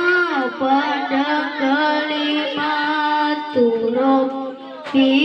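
A boy qori reciting the Quran in melodic tilawah style with a high voice, through a handheld microphone, holding long wavering ornamented notes. He breaks briefly for breath about four and a half seconds in, then resumes.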